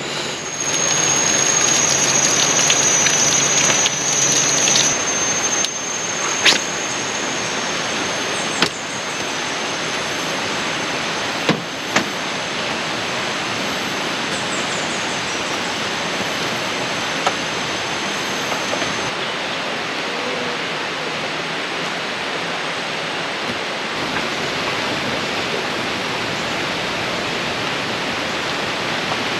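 Steady rushing of water, with a thin high tone running through the first twenty seconds or so and a few sharp clicks.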